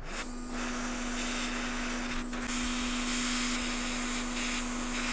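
Hot air rework station blowing a steady hiss of air with a constant hum from its fan, heating a NAND memory chip to lift it off a phone logic board.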